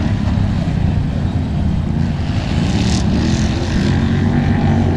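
Several 500–750 cc class racing ATVs running hard around a dirt track, their engines overlapping in a steady, loud mix.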